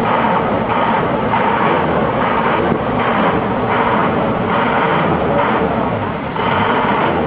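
Diesel engine running loudly, its noise swelling and easing again and again, about once every half-second to second.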